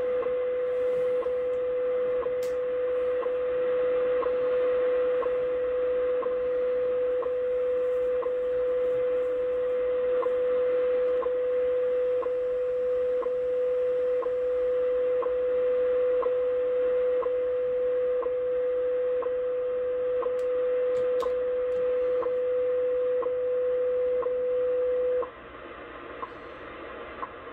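WWV time station from Colorado received on 25 MHz shortwave through a Yaesu FTdx10 transceiver: a steady tone broken by a tick every second, over band hiss. The tone stops near the end, leaving the hiss and faint ticks.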